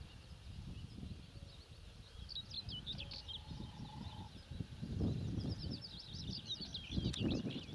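Songbirds singing in two bouts of quick chirping phrases, over a low rumbling noise that swells twice, about five and seven seconds in.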